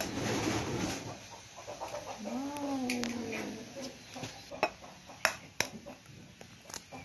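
A single drawn-out animal call, rising and then falling, about two seconds in. A few sharp knocks follow as an egg is tapped and cracked on a bowl's rim.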